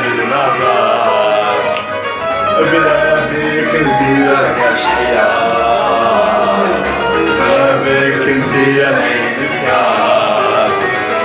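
Loud music with a man singing, continuing without a break.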